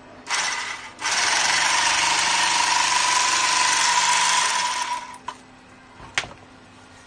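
Handheld electric bag-closing sewing machine stitching the top of a woven polypropylene sack: a short burst, then a steady run of about four seconds with a high whine before it winds down and stops. A sharp click about six seconds in.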